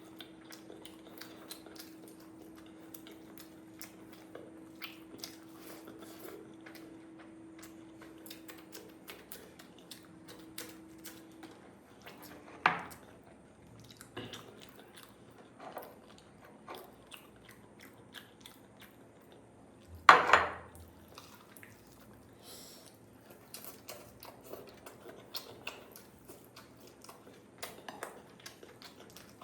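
A person eating a meal: chewing and many small clicks and clinks against a plate. Two louder knocks come about 13 and 20 seconds in.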